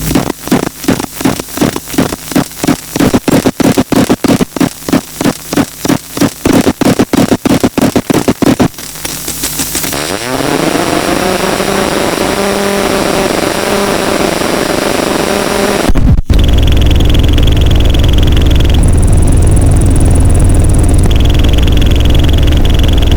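Self-oscillating circuit-bent glitch pedal, a clone of an EarthQuaker Devices Life and a DOD Carcosa fuzz wired in a feedback loop, making chaotic electronic noise. It starts as a rapid stutter of about four pulses a second, turns at about nine seconds into a hissing wash with warbling tones, cuts out for an instant near sixteen seconds, then comes back as a loud low buzzing drone under a high whistle that jumps between two pitches.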